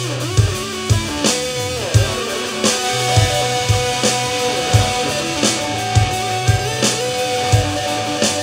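Rock jam: a guitar plays a melodic line with sliding notes over a steady drum beat and a sustained bass line.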